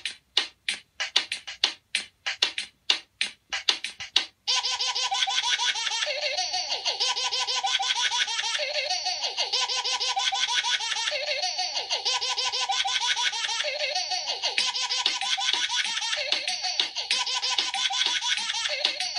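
A run of sharp separate beats, about three a second, then from about four seconds in continuous high-pitched laughter mixed with music.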